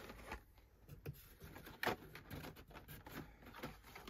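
Faint rustling and clicking of Hot Wheels blister-pack cards being handled and drawn out of a cardboard box, with a sharper click a little under two seconds in.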